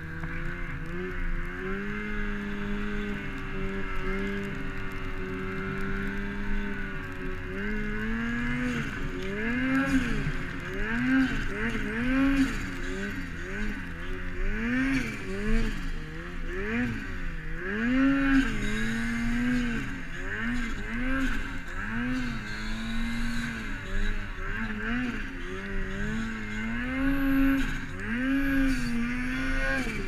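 Ski-Doo 850 turbo snowmobile's two-stroke twin, fitted with a Jaws exhaust can and a Silber blow-off valve, running hard under load in deep, heavy powder. The engine holds a steady pitch for the first several seconds, then revs up and down over and over as the throttle is worked.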